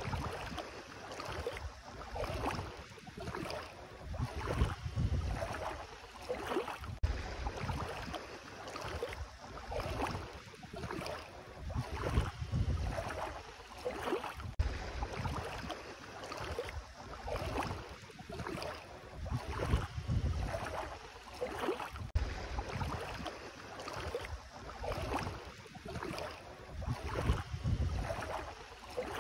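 Bare feet wading through ankle-deep sea water, a splash and swish with each step, about one step a second.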